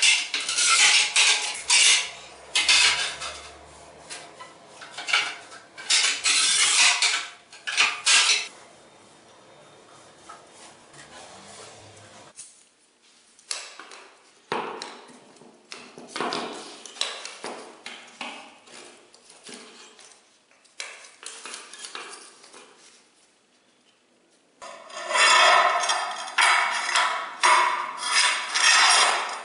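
Scraping and rubbing strokes on a ceramic floor tile at a manual tile cutter, a quick run of loud strokes for the first several seconds. Then quieter scattered clicks and rattles as a folding metal angle ruler is handled, and near the end another stretch of loud scraping.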